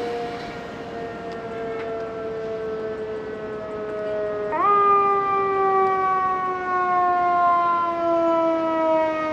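Emergency vehicle siren sounding a long, slowly falling wail. About halfway through it sweeps quickly back up and falls slowly again, louder, over a steady background rumble, then cuts off suddenly at the end.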